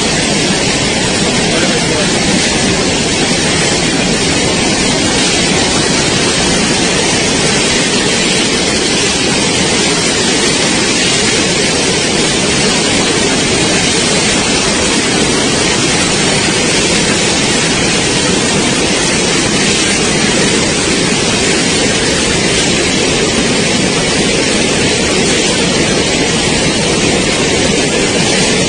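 Floodwater rushing past in a torrent: a loud, steady, unbroken rushing noise.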